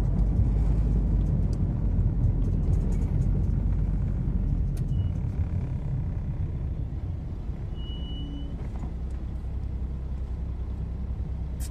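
Low rumble of car engine and tyre noise heard from inside a moving car, easing off about halfway through as the car slows to a stop, then a quieter steady rumble while it waits in traffic.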